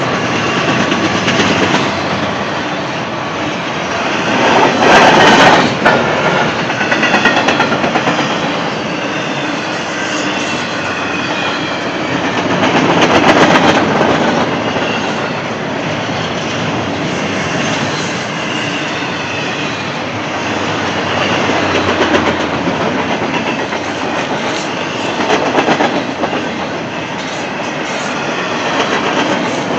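Double-stack intermodal container train passing close by: a steady rumble of steel wheels on rail with clickety-clack over the rail joints, swelling a few times, and faint thin wheel squeals now and then.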